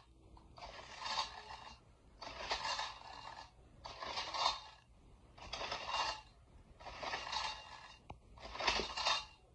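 Homemade LEGO pull starter (a shoestring cord wound on a LEGO axle, with a plastic centrifugal clutch) being yanked again and again, about every second and a half, each pull a short scraping rasp. The small LEGO pneumatic engine it is hooked to does not turn over: there is too little air pressure in the tank, and too much drag from its chains and large flywheel.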